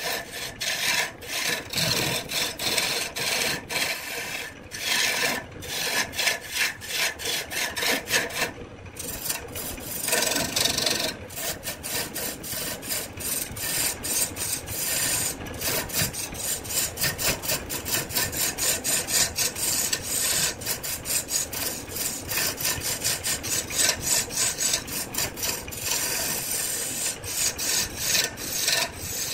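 Hand-held turning tool cutting into a spinning wood blank on a wood lathe: a continuous scraping rasp that pulses rapidly, with a brief let-up about nine seconds in.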